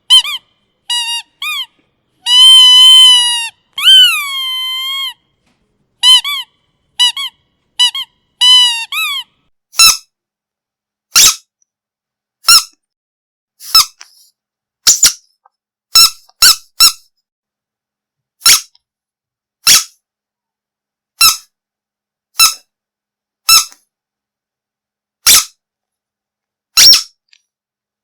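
Squeaky dog toys being squeezed. First comes a toy giving pitched squeaks that bend in pitch, some short and in quick pairs and one held for about a second. From about ten seconds in, a different toy gives short, hissy, high squeaks, one every second or two.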